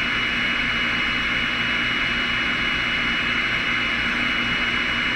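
Radio receiver hissing with steady static between transmissions, with a thin steady high whistle running through the hiss.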